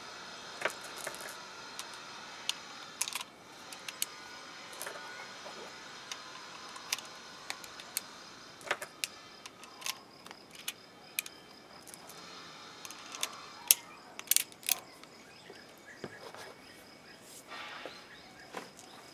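Irregular sharp metallic clicks and clinks from an Umarex Colt SAA Peacemaker CO2 revolver being loaded by hand, as shells are pushed into the cylinder through the loading gate and the cylinder is turned.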